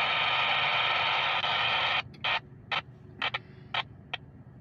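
Radio scanner hissing with open static for about two seconds, then cutting off sharply and crackling in five or six short bursts of static.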